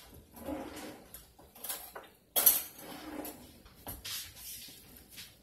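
Kitchen dishes and utensils clattering and clinking as they are handled, in a series of short knocks with the loudest clatter about halfway through.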